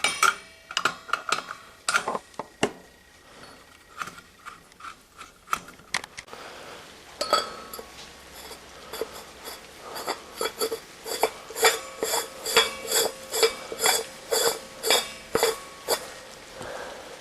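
Metal clinking and scraping as an empty argon gas cylinder and its cap are handled. It starts with scattered clicks and rubs, then becomes a steady run of ringing metal clinks, about two a second.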